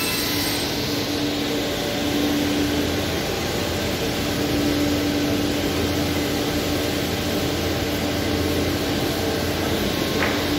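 Steady mechanical drone with a constant low hum, the sound of workshop machinery running.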